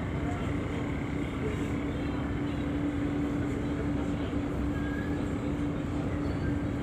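Passenger car ferry's engines running steadily under way: a constant low hum over a steady wash of noise.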